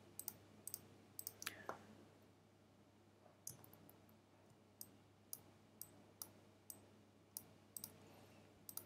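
Computer mouse button clicking, about a dozen short clicks at irregular intervals, some in quick pairs.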